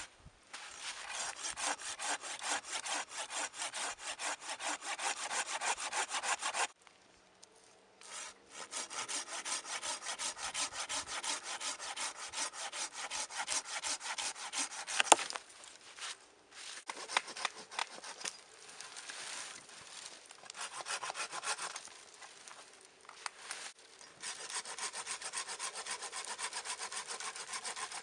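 Folding pruning saw cutting through a dead branch, in long runs of quick back-and-forth strokes with short pauses between them. A single sharp crack about halfway through is the loudest sound.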